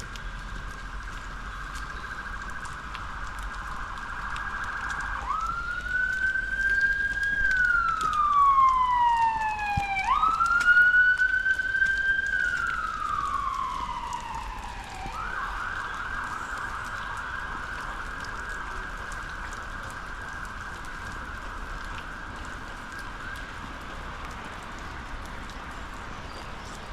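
Emergency vehicle siren going by: a fast yelp, then two slow wails that each rise quickly and fall away, then the fast yelp again. It grows loudest during the wails and fades afterwards, over a steady hiss of rain and running water.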